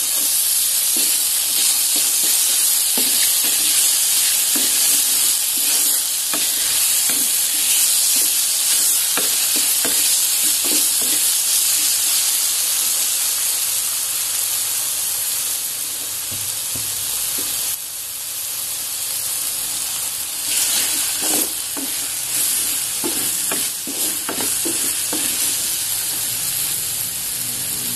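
Sliced button mushrooms sizzling as they sauté in a metal pot, with a wooden spatula scraping and stirring through them against the pot. They are being fried until they turn dark, the stage at which they are fully cooked.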